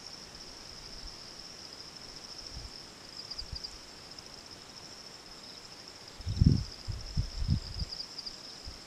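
Steady, high-pitched chirring of insects in the bush, a continuous pulsing drone. A few low thumps come about six to eight seconds in.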